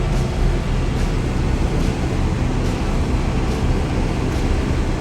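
Heavy 4x4 van driving, its engine and road noise a steady low rumble heard from inside the cab, with a faint regular tick a little less than once a second.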